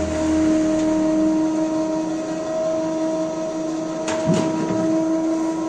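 Electric soap plodder running steadily with a humming motor while it extrudes soap noodles through its die. There is a brief knock about four seconds in.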